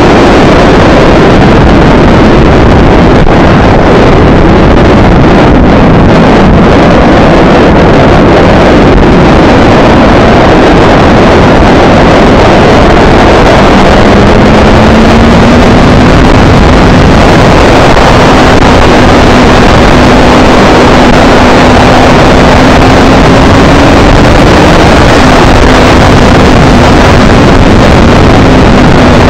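Loud onboard sound of a motorcycle at speed on a racetrack: heavy wind rushing over the microphone nearly buries the engine. The engine note falls in the first few seconds, then climbs steadily from about halfway as the bike accelerates down a straight, with a short dip near the end.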